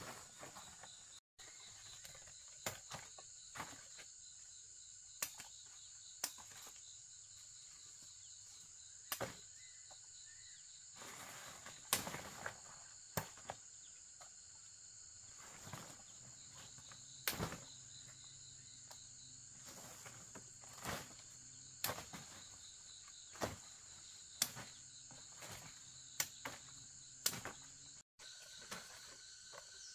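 Forest insects, crickets or cicadas, keeping up a steady high-pitched drone, with scattered short clicks and knocks throughout.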